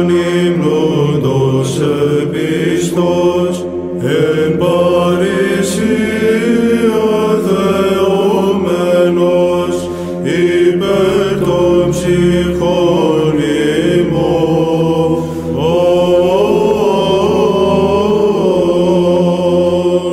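Byzantine chant: male chanters sing a melody in short phrases over a steady held drone note (ison), with brief breaths between phrases about four, ten and fifteen seconds in.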